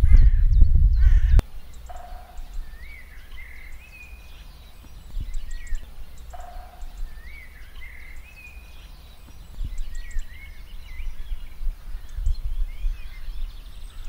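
Birdsong: a bird repeats a short warbling phrase, a low note followed by higher wavering notes, about every four seconds, with other faint chirps. Under it runs a low rumble that is heavy for the first second or so and then drops to a soft background.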